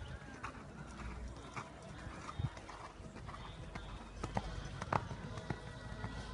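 Oldenburg sport horse cantering on a sand arena: dull hoofbeats, with a few louder thuds, the loudest about five seconds in.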